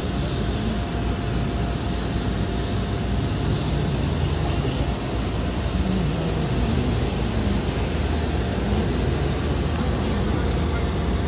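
Steady roar of jet aircraft on an airport apron, with a faint steady whine running through it. Faint voices come from the queue of passengers.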